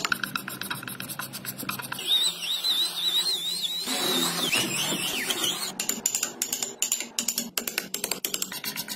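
Wood being chiselled and drilled: a fast run of sharp clicks and taps, with a wavering high whine from about two seconds in until past the middle.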